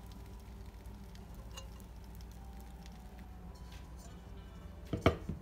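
Steady low hum with scattered faint clicks, then a sharp knock and short clatter about five seconds in as a nonstick pan is handled on the countertop.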